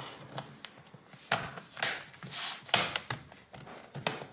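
Dell Inspiron 3585 laptop's bottom cover being pressed back into place by hand: a handful of separate clicks and snaps as its edge clips seat, with a short scrape about halfway through.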